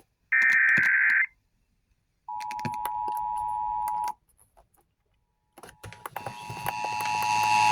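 Emergency Alert System tones: a short, harsh burst of digital header data, then about two seconds in the steady two-tone attention signal for nearly two seconds. From about six seconds in, another recording rises in with a steady tone, hum and crackling clicks.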